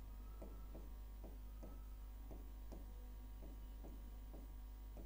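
Chalk striking and scraping a blackboard as short tick marks are drawn one after another, about two or three strokes a second, over a steady low hum.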